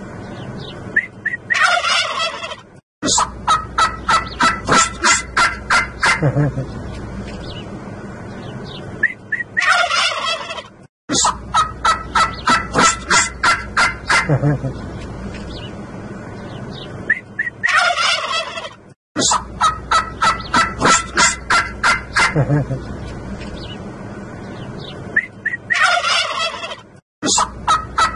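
A flock of domestic turkey toms gobbling. The same few seconds repeat about every eight seconds: a warbling gobble, then a fast run of pulsed gobbles at about four or five a second, with a short dropout between passes.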